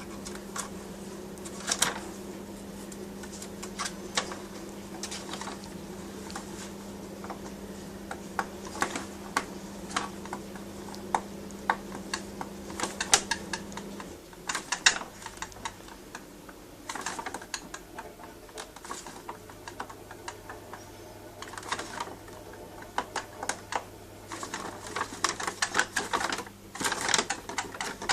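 Rapid, irregular clicking and tapping, in bursts that grow denser near the end, as the rainbow lorikeet's beak works at something hard.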